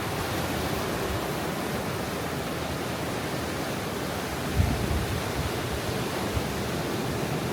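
Ocean surf at high tide: a steady, dense wash of breaking and receding waves, with a brief low rumble about four and a half seconds in.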